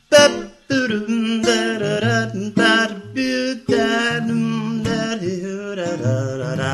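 A man's voice carrying a wordless melody in sustained, wavering phrases, with acoustic guitar underneath.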